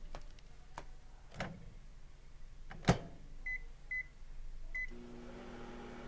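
Over-the-range microwave oven: a few light clicks and a sharp clack about three seconds in, then three short keypad beeps, and the oven starts running with a steady hum.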